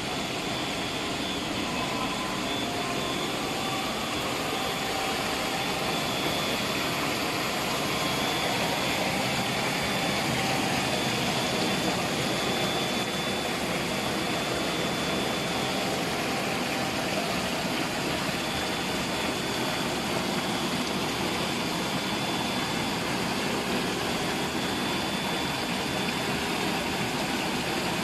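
CNC rotary table surface grinder running, its grinding wheel working a ring of scissor blades on the turning table under a flood of coolant. A steady mix of grinding hiss, splashing coolant and machine hum, with a faint high whine.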